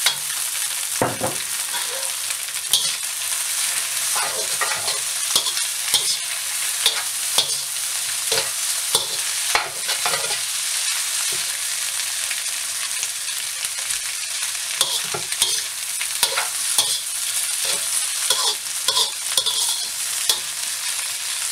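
Soaked rice noodles stir-frying in a hot wok: a steady sizzle with irregular scrapes and knocks as a metal slotted spatula tosses them against the wok.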